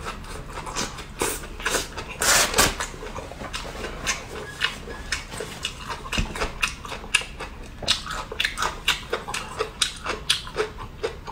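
Close-up chewing and mouth sounds of a man eating: wet, irregular smacking clicks, several a second, with a louder noisy burst about two seconds in.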